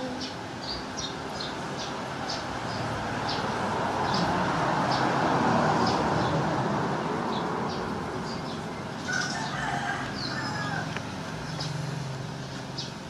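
Background fowl calls: a long crowing call swells and fades over a few seconds in the middle, with short high chirps repeating about once or twice a second.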